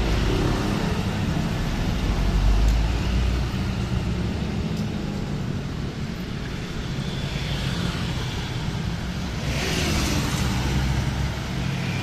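Mixed road traffic passing close: a steady engine rumble of minivans, motorcycles and cars, heaviest during the first few seconds as a minivan drives past, with a short burst of hiss about ten seconds in as a coach approaches.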